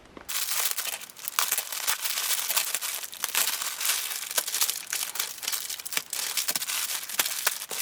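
Packaging crinkling and crackling continuously as it is handled and opened, with many small sharp crackles.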